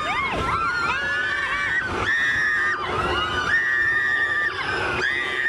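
Many train passengers whooping and screaming together in high, drawn-out and swooping calls as the train runs through a railway tunnel, over the steady low rumble of the moving train.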